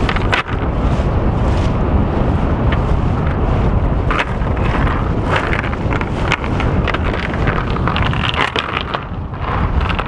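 Wind buffeting the microphone on the deck of a sailboat under way, over the wash of water along the hull, with a few brief clicks.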